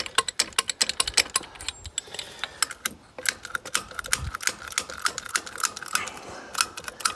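Rapid, irregular metallic clicking from a hand tool being worked. A faint steady high tone joins about three seconds in.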